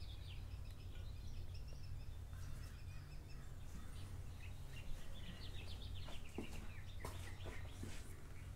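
Small birds chirping in quick runs of short notes, in several spells, over a steady low hum. A few light clicks come near the end.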